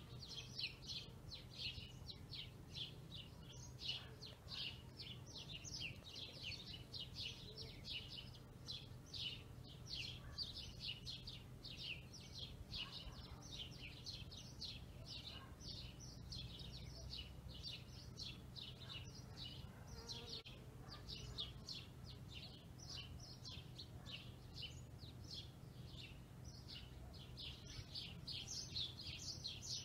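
Faint, steady chirping: short high chirps repeating about twice a second without a break, over a low steady hum.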